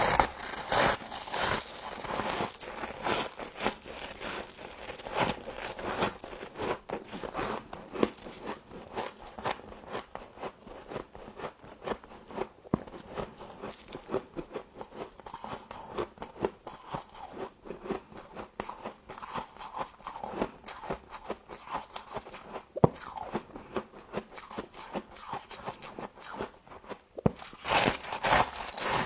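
Frost being bitten and chewed: a dense, irregular run of crisp crunches, with louder clusters of bites at the start and again near the end.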